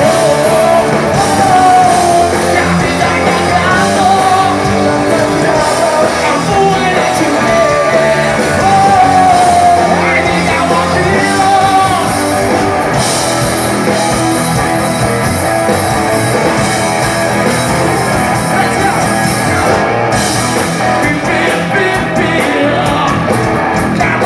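Live rock band playing a cover song: electric guitars, bass and drums with a lead vocal singing over the first half, then the band playing on without the voice.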